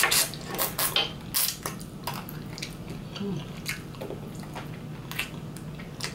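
Close-miked eating sounds from biting and sucking on a curry turkey wing bone: a quick run of sharp, wet clicks and smacks in the first two seconds, then sparser, quieter ones.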